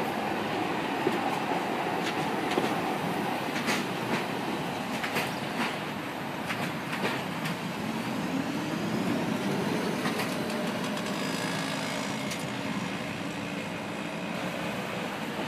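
Electric tram pulling away and running off along the track, its wheels clicking sharply over rail joints and points several times, with a rising hum about halfway through as it gathers speed.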